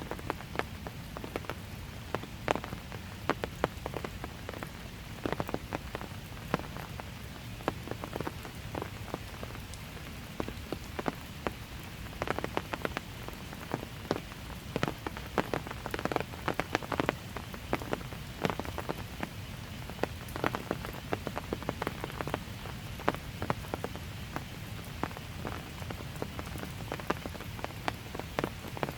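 Light steady rain, with a soft continuous patter and many individual drops ticking sharply and irregularly on nearby surfaces.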